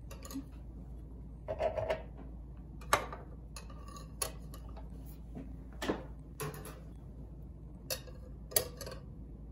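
Small metal offset spatula clicking and scraping against the plates of an electric pizzelle iron as baked pizzelles are pried up and lifted off; irregular light clicks and taps, about one every second.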